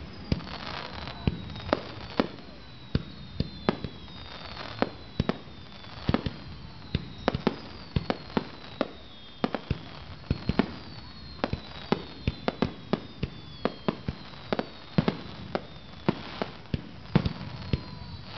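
Aerial fireworks display: a rapid, uneven string of sharp bangs from bursting shells, about two a second, with repeated high whistles sliding down in pitch between them.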